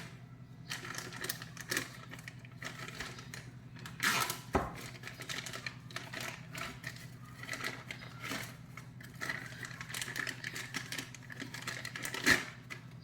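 Plastic packaging bag being opened and handled, crinkling and crackling irregularly, with a few sharper knocks about four seconds in and near the end, over a steady low hum.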